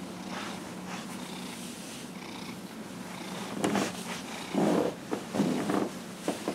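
Domestic cat purring while being massaged by hand. The purr becomes louder from about halfway through and comes in uneven pulses.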